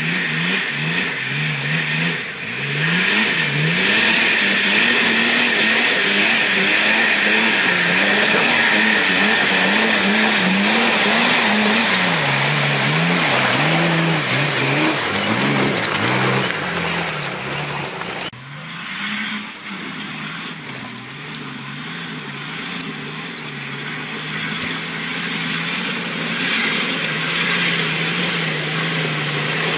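Nissan Patrol 4x4's engine revving up and down repeatedly as it climbs a steep slope of loose rock. About two-thirds of the way through the sound cuts abruptly to a quieter, steadier engine note.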